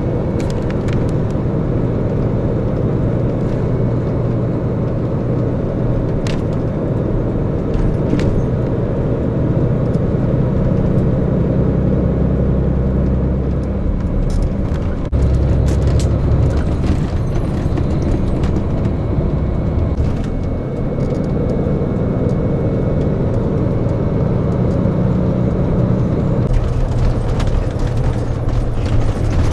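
Tour coach driving along a road, heard from inside the passenger cabin: a steady engine and road-noise drone whose low tones shift about halfway through and again near the end.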